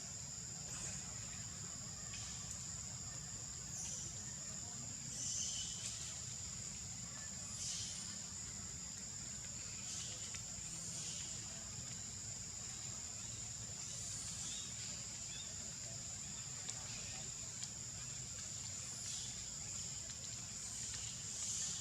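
Steady high-pitched insect drone with two unbroken tones, broken every second or few by short high calls from animals.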